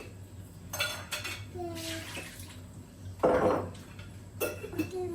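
Dishes and cutlery clinking and clattering as food is served: several sharp clinks, with a louder clatter a little past three seconds in.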